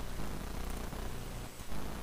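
A low, rough buzzing rumble with a pulsing texture, pausing briefly about one and a half seconds in and then resuming.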